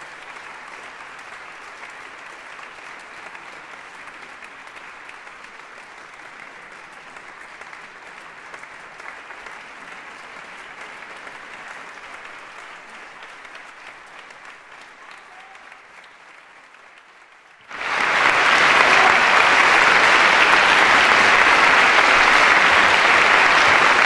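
Concert audience applauding steadily, slowly fading, then abruptly much louder applause about three-quarters of the way through.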